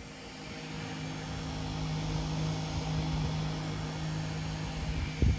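A 12-volt clip-on camping fan running, a steady low hum that swells over the first couple of seconds. A short thump near the end.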